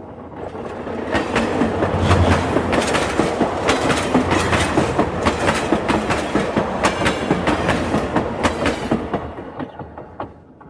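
Clickety-clack of a moving passenger train's wheels on the rails: a fast, uneven run of sharp clicks over a steady rumble. It swells in over the first two seconds and fades away near the end.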